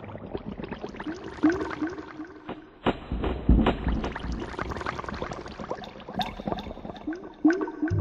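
Electronic soundtrack of gurgling, water-like sounds: many short blips and gliding tones that rise and fall, with a low rumble about three seconds in.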